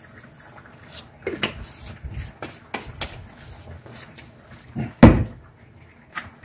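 Glass jars and bottles being handled on a kitchen counter: a run of light clicks and knocks, then one louder knock about five seconds in as a container is set down or picked up.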